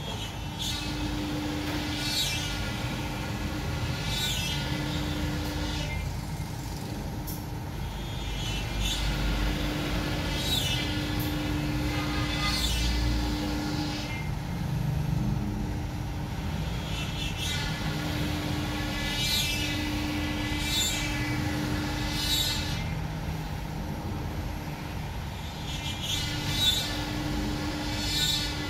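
CNC router at work: a steady machine noise with a whine that rises and falls about every two seconds, and a low hum that switches on and off in stretches of a second or two.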